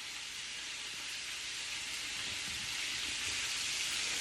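Flour-coated chicken frying in hot oil, a steady sizzle that grows slightly louder.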